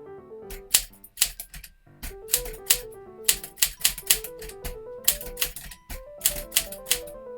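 Keys of a 1955 Smith Corona Silent Super portable typewriter clacking in quick runs of typing, several strokes a second, with two short pauses. A light background music melody plays underneath.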